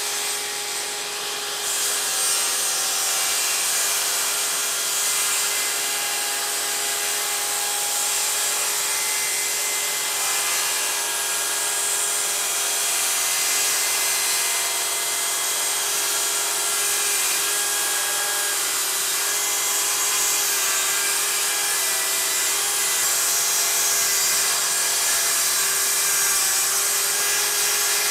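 DeWalt cordless circular saw ripping a 2x4 lengthwise, cutting steadily with the blade's whine over the sound of wood being cut.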